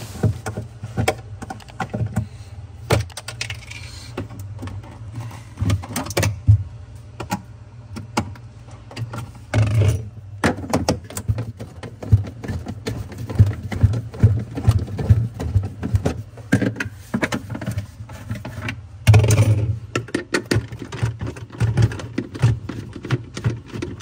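Hand tools working on the plastic freezer panels and fittings: irregular clicks, knocks and rattles as a screwdriver turns out screws, over a steady low hum.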